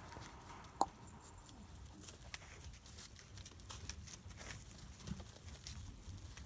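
Two billy goats shuffling their hooves on dirt and rubbing against each other: faint scattered clicks and scuffs, with one sharper click about a second in.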